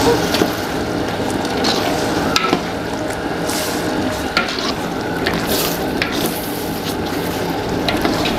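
Metal ladle stirring a thick onion-tomato masala in a large aluminium pot, scraping and clinking against the pot now and then over steady sizzling.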